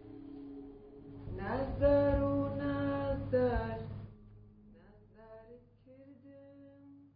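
Background film music: over a low steady drone, a long held melodic note slides up at its start, holds for about two seconds and slides down again, followed by softer, shorter notes.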